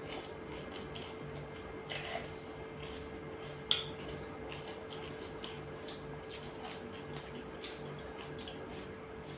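Close-up wet eating sounds of rice and curry eaten by hand: chewing, lip smacks and squishing, heard as many small scattered clicks, with one sharper click a little over a third of the way through. A steady low hum runs underneath.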